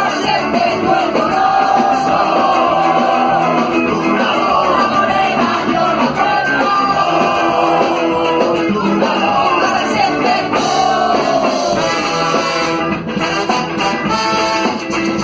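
Rock song with singing over a band and a steady drum beat.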